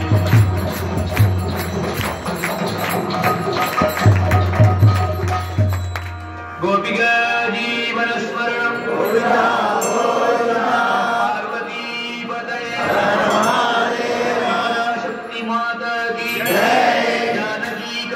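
Temple aarti: for about the first six and a half seconds, a steady drum beat with clashing metal percussion. Then voices chant a mantra in a sung melody for the rest.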